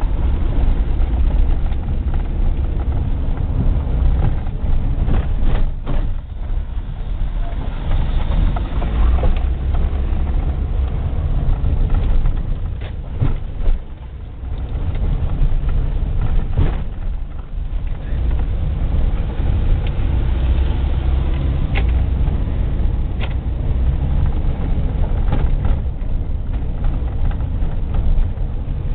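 A vehicle's engine and tyres rumbling steadily while driving over a rough gravel road, with scattered short knocks and rattles. The rumble dips briefly about halfway through, then picks up again.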